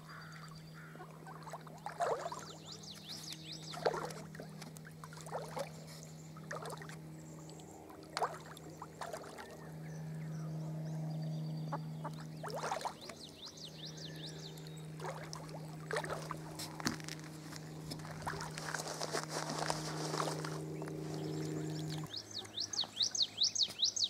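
Mallard ducklings dabbling and splashing at the water's surface, with high thin peeping calls now and then. A steady low hum runs underneath and stops near the end.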